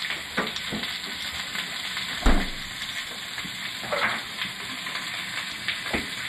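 Steady sizzle of onion frying in olive oil in a pan, with a few light knocks and one louder thump about two seconds in.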